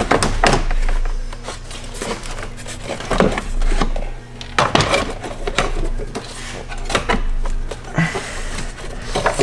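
Irregular clatter, knocks and scraping as an AEM cold-air intake's heat shield is pushed and wiggled into place among the plastic parts of a car's engine bay.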